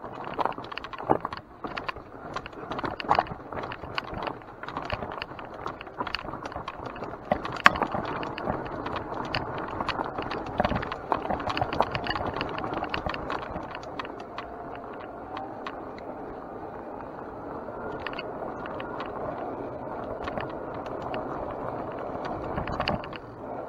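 Mountain bike ridden over a rough dirt trail: tyres rolling over dirt and stones, with frequent knocks and rattles from the bike in the first half, then smoother, steadier rolling.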